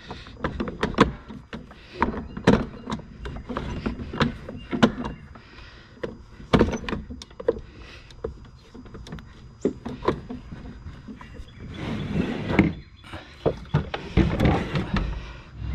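Irregular metallic clicks and knocks of a screwdriver working at a stuck part on the rear axle of a Ryobi 40-volt mower, with a couple of longer scraping stretches near the end.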